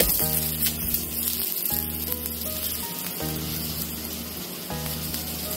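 Ghee sizzling under a stuffed sattu paratha frying on a hot tawa, a steady hiss, over background music with held notes.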